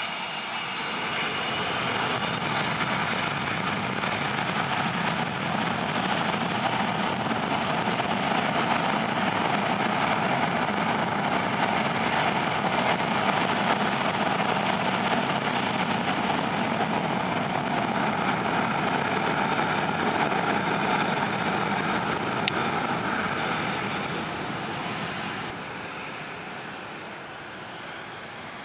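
Twin turbofan engines of a Cessna CitationJet CJ1 spooling up to takeoff power, a whine rising in pitch over the first few seconds and then held steady and loud. The sound fades near the end as the jet rolls away down the runway on its takeoff run.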